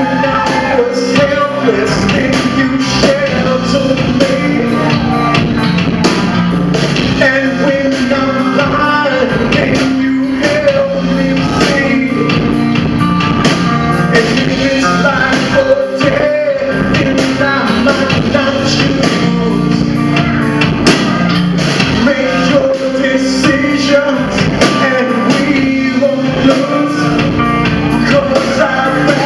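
Rock band playing loud and steady, with electric guitar and drum kit, and a voice singing over it.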